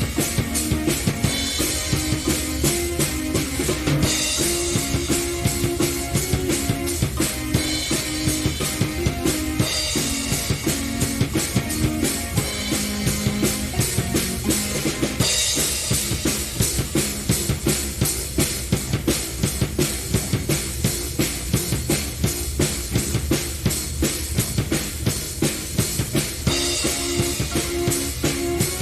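Progressive-rock jam of keyboard and drum kit playing together: a dense, steady drum beat under held keyboard chords that change every second or two. The cymbals get brighter in several stretches.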